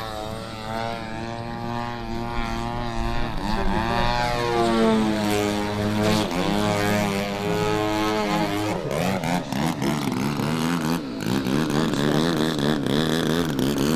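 Desert Aircraft DA-120 twin-cylinder two-stroke petrol engine of a giant-scale RC aerobatic plane, its propeller drone rising and falling in pitch as the plane manoeuvres. From about nine seconds in, the pitch wavers quickly up and down with rapid throttle changes.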